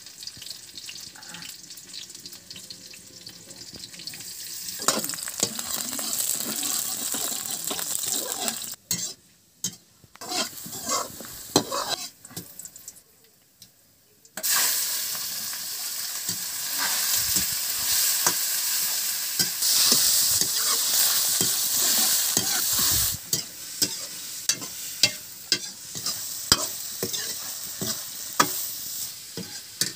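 Hot oil sizzling in a steel kadai, jumping suddenly to a loud sizzle about halfway through as dried pasta shapes ('spare parts') are tipped into the oil. It then settles as the pieces are stirred, with frequent clicks and scrapes of a metal spatula against the pan.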